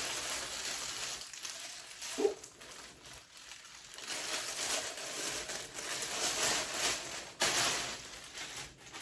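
Plastic packaging crinkling and rustling as a packaged clothing set is opened, with a sharper, louder rustle late on.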